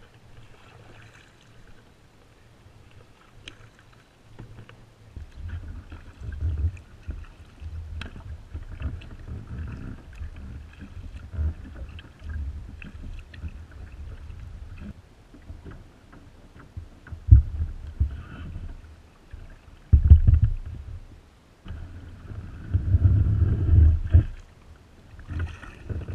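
Kayak being paddled: paddle strokes and water splashing along the hull over an uneven low rumble, with a few sharp knocks, the loudest a little past the middle.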